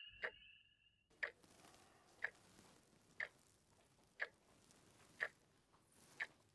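Clock ticking at one tick a second in a quiet room. A high steady tone cuts off about a second in, just before the ticking takes over.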